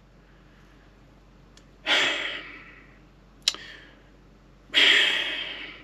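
A man lets out two long, heavy sighs, the first about two seconds in and the second, louder one near the end, each fading away, with a short mouth click between them.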